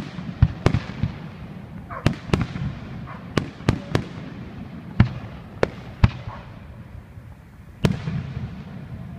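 Fireworks display: aerial shells bursting in a quick, irregular series of about a dozen sharp bangs, each trailing off in a short echo, over a low continuous rumble.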